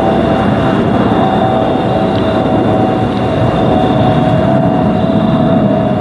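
Airbus A320-211 airliner on descent with its CFM56 engines, a steady rushing jet noise overlaid by a steady mid-pitched whistle and a fainter high whistle.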